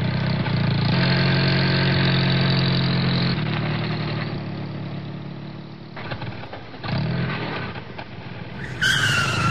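Car engine sound revving up and running steadily, dropping back in the middle and picking up again near the end. A short higher-pitched sound with falling pitch cuts in just before the end.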